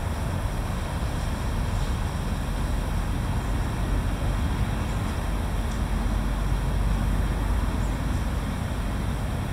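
Steady low outdoor rumble with no distinct events, strongest in the deep bass.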